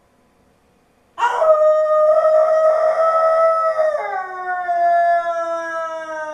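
Wolf howl starting suddenly about a second in: one long, steady note that begins sliding slowly downward about three seconds later, with a second, lower howl gliding down beneath it.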